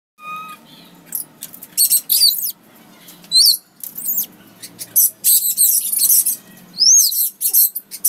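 Parrots calling: a run of harsh, high-pitched screeches and squawks mixed with short whistles, one rising whistle about halfway through and an arching whistle near the end.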